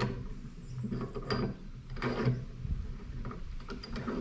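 Hand-turned 4-inch bench vise: metal-on-metal scrapes and clunks from the vise screw and its sliding handle, a few separate strokes about a second apart.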